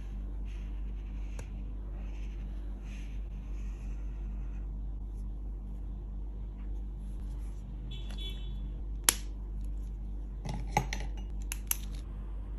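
Marker pen tip scratching across paper in short strokes, once or twice a second. Then a sharp click about nine seconds in and a cluster of clicks and knocks near the end, as pens are handled, set down and picked up.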